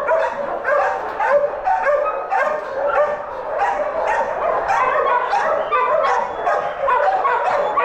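Many dogs barking at once in an overcrowded animal shelter, a dense, unbroken din of overlapping barks and yips.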